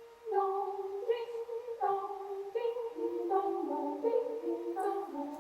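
Choir singing a cappella, opening a piece with short repeated falling phrases in the high voices; lower voices join about halfway through.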